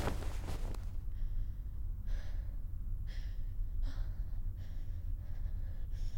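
A young woman's ragged, gasping breaths, about five sharp breaths roughly a second apart, over a steady low rumble. A loud rushing noise dies away in the first second.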